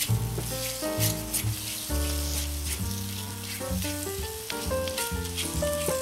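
Background music with held notes and a bass line, over the sizzle and scrape of a thick jaggery-and-coconut-milk dodal mixture being stirred with a wooden spatula in a metal kadhai.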